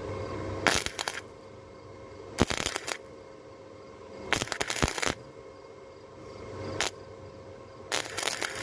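Harbor Freight 125 flux-core wire welder crackling in five short bursts, each a quarter to three-quarters of a second long: quick stitch or tack welds, with a steady low hum between them.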